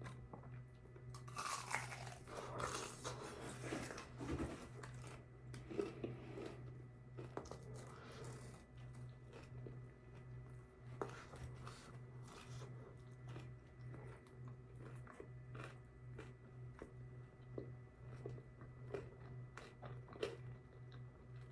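Close-mouthed biting and chewing of crispy fried food, with the loudest crunching in the first few seconds and softer mouth clicks after. A steady low hum runs underneath.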